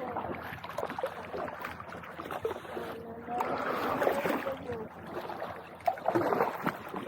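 Water sloshing and splashing against a kayak as it rocks in waves, in uneven surges.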